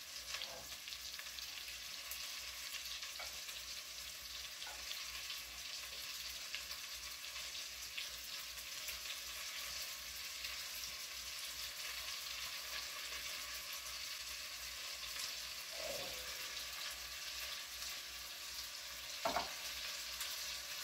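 Flour-dredged beef pieces frying in hot butter and olive oil in a Dutch oven, a steady sizzle as the fat comes up to heat, with a few faint clicks.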